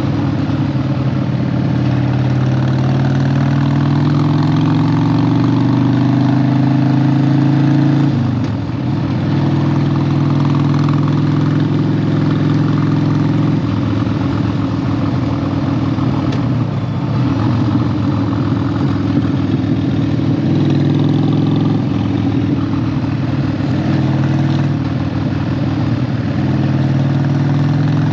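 Harley-Davidson 1200 V-twin motorcycle engine running under load on a climb, its pitch holding and shifting with the throttle. It dips briefly about eight seconds in and again around seventeen seconds, as at gear changes.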